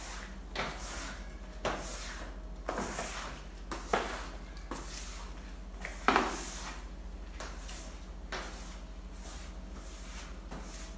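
Rubber floor squeegee pushing water across a wet tiled floor in repeated strokes, each a short scraping swish, about one a second.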